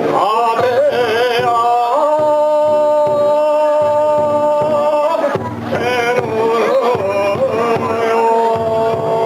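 A singer holding long, wavering notes over music, with a brief dip near the middle.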